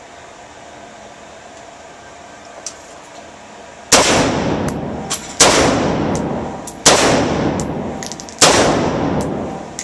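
Rifle fitted with a Battle Rifle Company flash suppressor firing 55-grain rounds: four shots about a second and a half apart, starting about four seconds in, each trailing off in a long echo.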